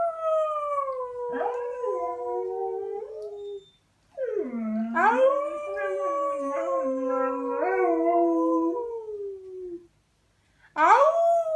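A dog howling: long, wavering howls that slide down in pitch, three in a row separated by brief silences, the last starting near the end.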